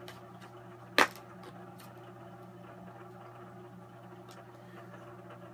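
A clear plastic soft-bait package being handled as baits are pulled out of it, with one sharp click about a second in and a few faint ticks after. A low steady hum sits underneath.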